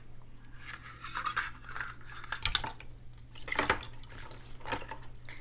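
Hollow plastic egg halves clicking and knocking against each other as they are handled and set into a bowl of water, in several short clatters about a second apart.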